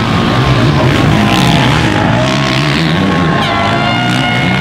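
Four-stroke motocross bike engine revving up and down as the rider powers through a dirt corner.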